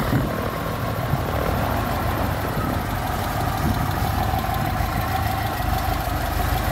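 UL Power UL350iS flat-four aircraft engine turning a three-bladed in-flight adjustable-pitch propeller, running steadily in a ground run.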